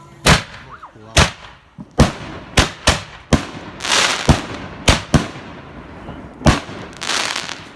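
5-inch canister firework shells launching from their tube and bursting overhead: a string of about ten sharp bangs, with hissing crackle about four seconds in and again near the end.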